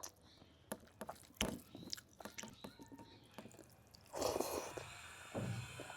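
A person chewing a mouthful of food close to the microphone: a run of small wet clicks and smacks, with a louder, noisier stretch starting about four seconds in.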